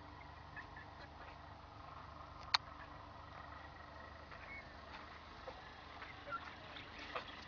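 Faint outdoor ambience with a steady hum, a few short faint chirps, and one sharp click about two and a half seconds in.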